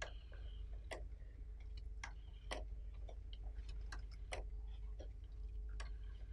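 Faint, irregular clicks, about one or two a second, over a low steady hum: crackle and hiss on an old recording's soundtrack during a silent pause.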